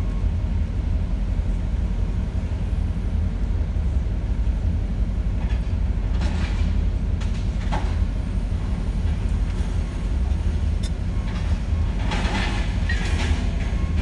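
Steady low engine rumble, heard from inside a vehicle cab, with scrap metal clanking and crashing as a scrapyard crane handles a trailer load. The crashes come about six seconds in, a few times after, and loudest near the end.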